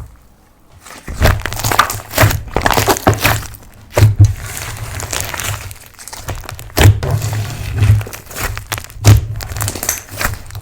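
Slime being kneaded and pressed by hand: irregular sticky crackles and popping, with several dull thuds as it is pressed down.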